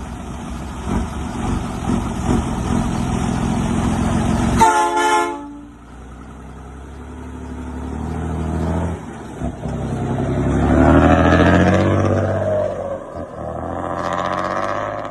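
Old diesel truck engine running loud; a brief horn toot about four and a half seconds in, then an engine revving up and back down, twice.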